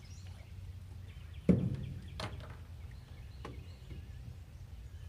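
A single heavy thump about a second and a half in, then two lighter knocks, over a steady low hum, with faint bird chirps.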